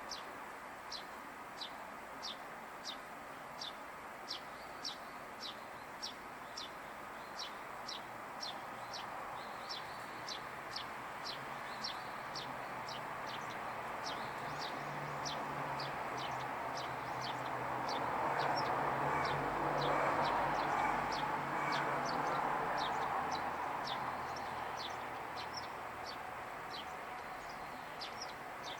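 A small bird calling a short, high, down-slurred chirp over and over, roughly one or two a second. Behind it a vehicle passes, rising to its loudest about two-thirds of the way through and then fading.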